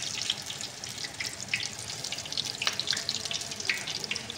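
Battered spinach-leaf pakoras deep-frying in hot oil: a steady sizzle full of fast crackles.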